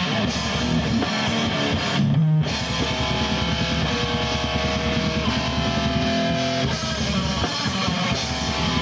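Live band playing loud electric guitar and bass, with held chords and a brief break about two seconds in where only a low note rings.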